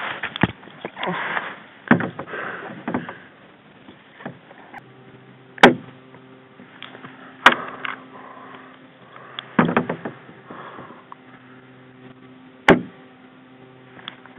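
Airsoft guns firing single shots: about five sharp snaps a couple of seconds apart, two of them close together, over rustling and a steady low hum.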